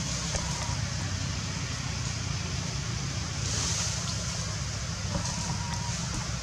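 Steady outdoor background noise, a low rumble under an even hiss. A few faint clicks and a short, faint, thin tone come through near the end.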